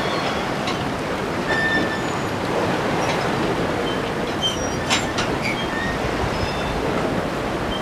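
Sea waves washing steadily, with short high bird chirps scattered over the noise and a few sharp clicks.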